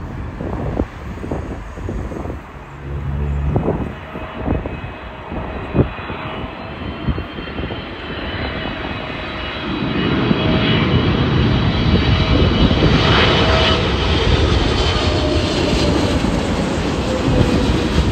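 Boeing 777 jet on final approach passing low overhead. Its engine rumble swells about halfway through and stays loud, with a fan whine on top that slides down in pitch near the end. Wind buffets the microphone in the first half.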